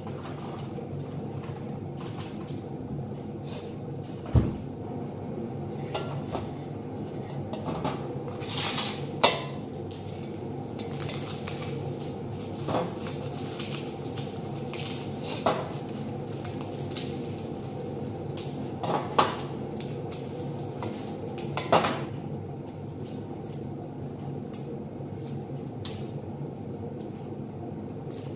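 A knife and kitchen utensils clink and clatter against a large stainless steel tray, about six sharp knocks at irregular intervals, over a steady low hum.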